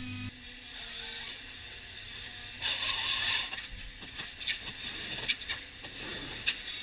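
Ponsse forestry harvester's machinery working: scattered mechanical clicks and knocks, with a short hiss a little under three seconds in.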